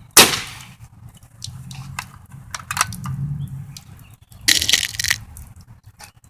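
A pellet rifle firing once, a sharp loud crack just after the start with a short ring. About four and a half seconds in comes a second, longer hissing burst of about half a second.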